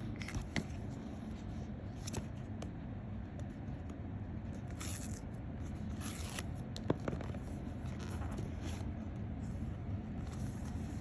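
Unboxing an iPhone 14 Pro Max: the box's packaging being torn open and handled, with short tearing and rustling bursts, scraping and a few small clicks.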